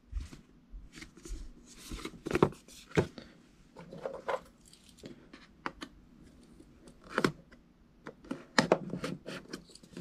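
Cardboard box handled and slit open with a small knife: scattered clicks, taps and short scraping cuts, with a few louder knocks.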